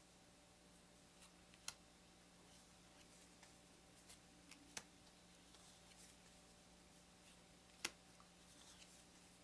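Near silence: room tone with a steady low hum and three faint sharp clicks, spaced about three seconds apart.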